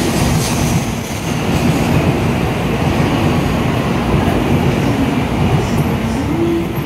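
N700-series Shinkansen train pulling out of the station past the platform: a steady, loud running rumble of wheels and running gear as the cars roll by. A short rising tone comes near the end as the tail car passes.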